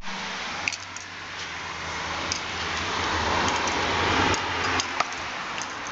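A road vehicle going by, a steady low hum under a rush of noise that swells to a peak about four seconds in and then eases off, with a few light clicks.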